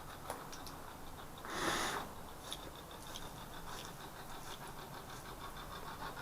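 A quiet pause with faint scattered clicks, broken about a second and a half in by one short breathy exhale.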